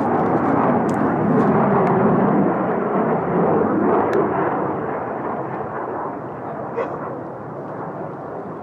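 Low-flying airplane passing close overhead: a loud, steady roar that slowly fades away over the second half.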